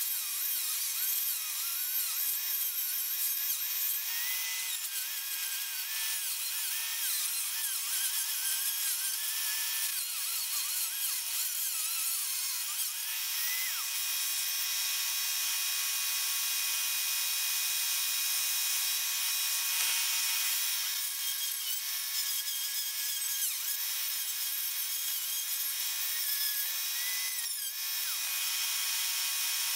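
Handheld high-speed rotary tool running continuously with a high-pitched whine, its pitch dipping and wavering as the bit cuts into the droid's wooden frame.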